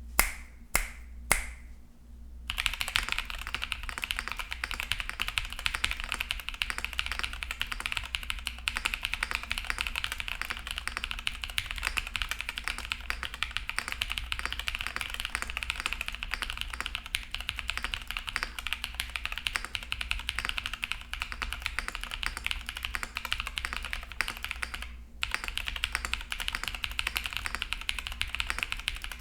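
Fast, continuous typing on a KBDFans Pluto tenkeyless mechanical keyboard with lubed tactile frankenswitches (Cherry Nixie housings, Boba U4T stems and springs, switch films) in an o-ring-mounted case with an aluminium plate and foam. A few loud single clicks come first, then a steady stream of keystrokes with a short pause near the end.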